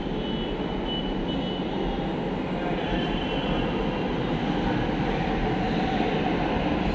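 Delhi Metro train running through the elevated station: a steady rumble that grows a little louder toward the end, with a faint high whine from the wheels in the first half.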